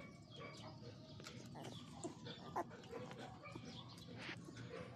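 A litter of golden retriever puppies whimpering and squeaking, with many short, high, sliding calls one after another and a sharper one about two and a half seconds in.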